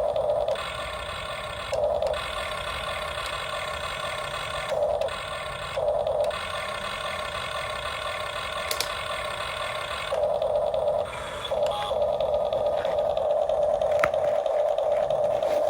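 Radio-controlled model excavator's small electric motors whining steadily, with short louder surges every second or few as its functions are worked, and a longer, sustained louder stretch from about ten seconds in.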